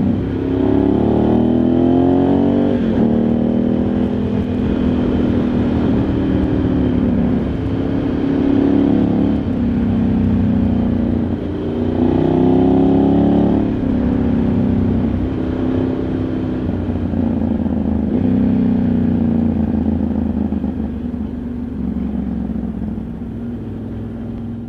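Ducati Multistrada 1100S's air-cooled L-twin engine pulling hard, its pitch climbing and then dropping at each gearshift three times, then running more steadily and easing off near the end.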